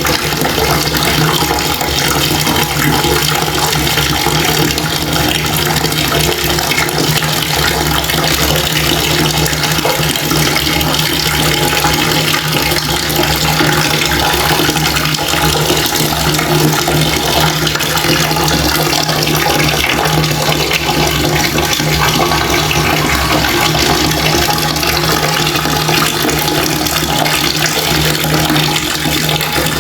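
Water running from a tap in a steady, unbroken stream.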